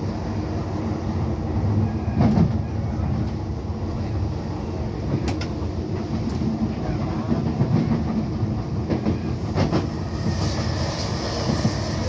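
Docklands Light Railway train running along the track, heard from inside the carriage: a steady low rumble with a few sharp clicks from the wheels over rail joints. A hiss rises near the end.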